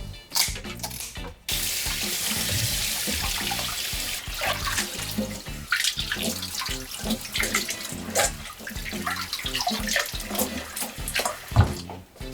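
A kitchen tap runs water into a sink as a steady hiss for a few seconds, then stops. Short clinks and knocks of things being handled follow.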